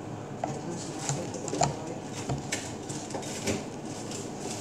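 A few scattered light knocks and clicks of things being handled, over a low background hum.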